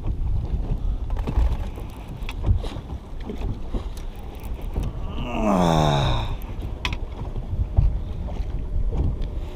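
Wind buffeting the microphone over open water, a steady low rumble with scattered light knocks. About five seconds in, a short voice-like call falls steeply in pitch for about a second.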